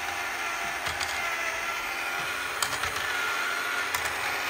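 Tomy Thomas' Race on the Rails toy train set running: a steady mechanical whir, with a few light plastic clicks as the small engines move along the ramp and track.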